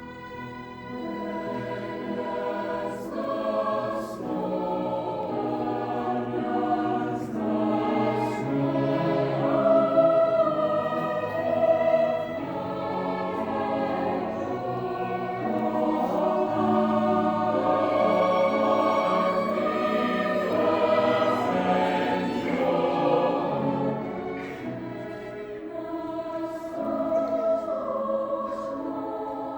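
Choir singing, several voices holding long notes together in harmony.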